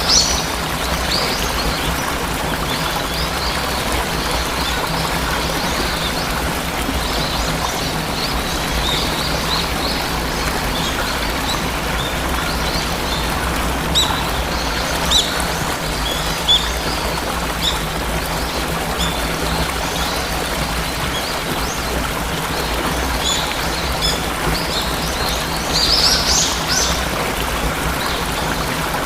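Steady rush of a waterfall, with small birds chirping now and then above it and a brief burst of chirps near the end.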